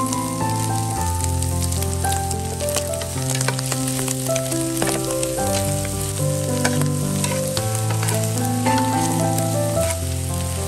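Snails and chopped spring onions sizzling as they are stir-fried in a metal pan, with a metal spatula scraping and clicking against the pan now and then. Background music with held notes plays underneath.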